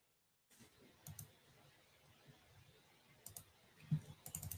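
Faint clicks of a computer mouse and keyboard: a couple of single clicks, then a quick run of clicks near the end.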